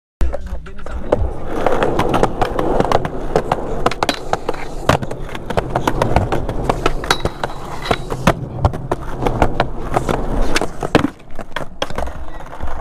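Skateboard wheels rolling over concrete and asphalt with a steady low rumble, broken by many sharp clacks of the board hitting the ground. The rolling dies down about eleven seconds in.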